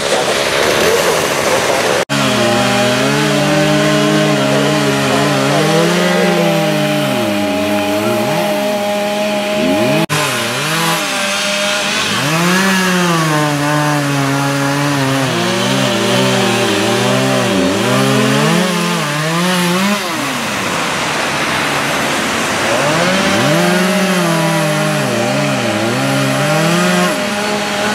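Gas chainsaw cutting through the limbs of a fallen tree, its engine revving hard and repeatedly dropping and climbing in pitch as the chain bites into the wood, with a short ease-off about two-thirds of the way in.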